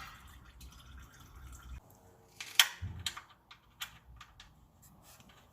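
Scattered light clicks and taps of small metal parts and tools being handled during an engine oil change, with one sharper knock about two and a half seconds in.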